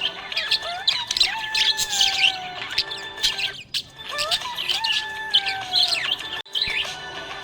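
A flock of budgerigars chirping and twittering in quick, busy calls over a steady backing melody. The sound dips out briefly twice, about halfway through and near the end.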